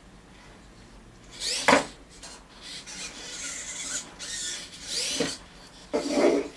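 Cleaning with a remote-controlled robot arm: irregular scratchy rubbing and scrubbing on a surface, broken by sharp squeaks that sweep down in pitch. The loudest squeak comes about a second and a half in and another near the five-second mark, with steadier scrubbing near the end.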